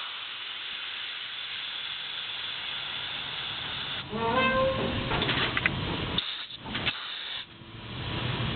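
Air hissing through a pickup dump bed's air cylinder and valves, steady for about four seconds. Then a short rising squeal and rougher, louder noise follow as the raised bed is let down onto the frame.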